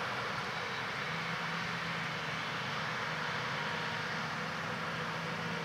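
John Deere 8R-series tractor pulling an Amadas peanut combine while picking peanuts, engine and combine machinery running steadily. It is heard as a low, even hum under a hiss of machinery.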